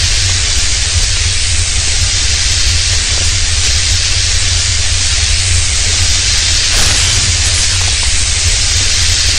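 Loud, steady hiss with a deep rumble underneath: an added magic-spell sound effect for the wand's crackling glow.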